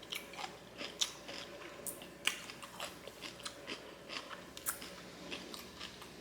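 A person chewing close to the microphone, crunching kimchi, with many small irregular crunches and mouth clicks.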